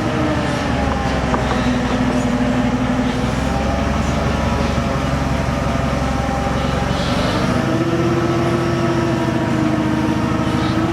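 Steady mechanical hum made of several held tones over a low rumble. The tones shift pitch about two seconds in and again at about seven and a half seconds, when the rumble drops away.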